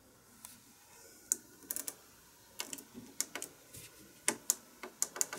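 About a dozen sharp clicks at uneven intervals, some in quick runs: the power button on a Dell UltraSharp 2407WFP monitor's bezel pressed over and over while the monitor stays off, its power cord not fully plugged in.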